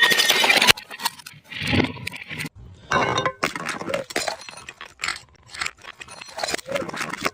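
Glass bottles breaking and clinking, with the shards ringing, in a string of short clips that each cut off abruptly before the next begins. There is a duller impact about two seconds in.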